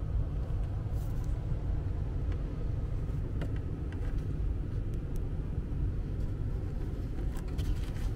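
Steady low rumble of a running HVAC system, with a few faint clicks and rustles from moving through blown-in attic insulation.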